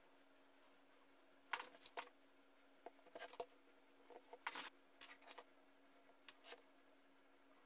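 Quiet, scattered clicks and taps of small wooden parts being fitted together and plastic spring clamps being closed onto them, over a faint steady hum.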